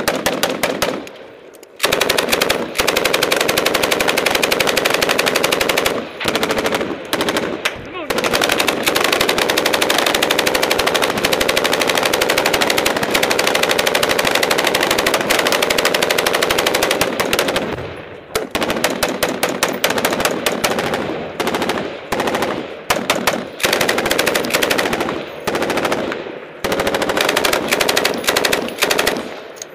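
Belt-fed machine guns firing close to the microphone. A short burst comes first, then about sixteen seconds of near-continuous automatic fire, then a string of shorter bursts with brief pauses between them.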